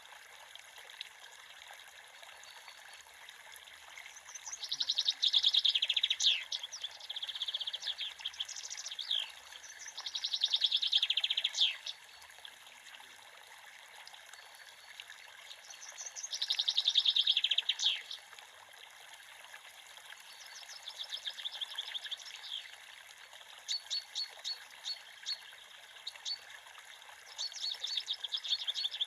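A songbird singing rapid trilled phrases, about seven of them, each a second or two long with pauses between, over a creek's steady running water.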